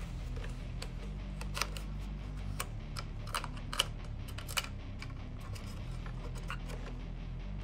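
Scattered sharp clicks and taps from handling a plastic toy gun and its parts, about eight in all, over steady background music.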